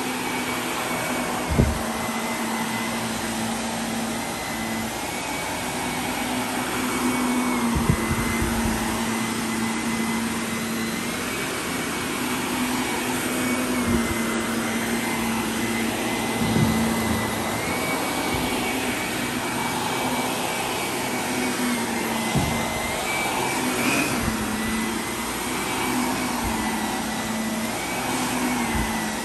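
Upright vacuum cleaner running steadily as it is pushed back and forth over carpet, its motor pitch shifting slightly up and down with the strokes. A few short thumps sound at intervals.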